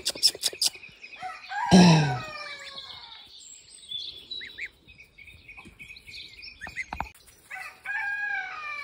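Gosling peeping: a scatter of short, high peeps that mostly fall in pitch, with a louder, lower call about two seconds in and a cluster of peeps near the end. A few sharp taps come at the very start.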